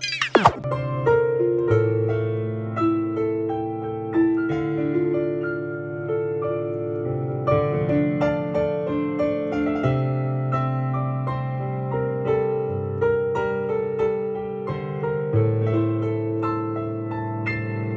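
Background music: a gentle instrumental piece of plucked, piano-like notes over held bass notes. A quick falling sweep comes right at the start.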